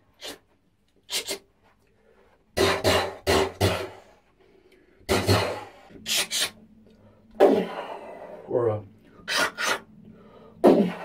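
A man imitating a handgun with his mouth: a string of short, sharp vocal clicks and bangs in irregular groups, several in quick pairs, with short gaps between.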